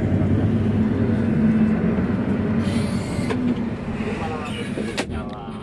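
Bus diesel engine idling: a steady low hum, with a single sharp click about five seconds in.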